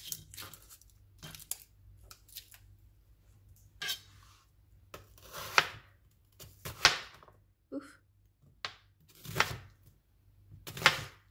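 An onion being peeled and cut on a cutting board: separate dry rustling, tearing and scraping sounds of the skin and knife, about five louder ones from the middle on.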